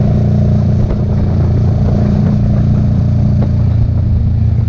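Sport motorcycle's engine running at a steady cruise, with road and wind noise.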